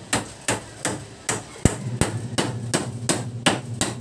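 Claw hammer pounding on a wooden stair handrail joint being fixed back in place: a rapid, even run of sharp blows, about three a second.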